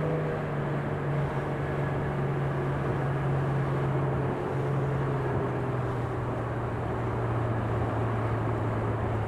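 Motorboat engine running at a steady speed, a constant low drone over the rush of wind and water.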